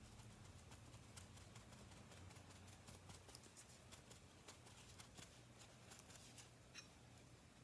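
Near silence: faint, scattered light ticks and rustles of small handling at a craft table, over a low steady hum.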